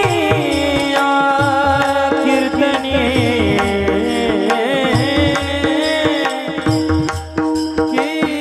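Marathi devotional kirtan music: a male voice sings a long, wavering line that glides up and down, over tabla strokes and a steady drone.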